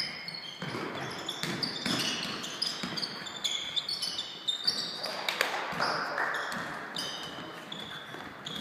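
Basketball game play on a hardwood court in a large sports hall: sneakers squeaking in short, repeated chirps and the ball bouncing, with scattered thuds of running feet.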